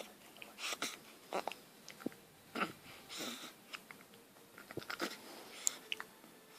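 A run of hiccups: about half a dozen short, sudden catches, spaced unevenly a second or so apart.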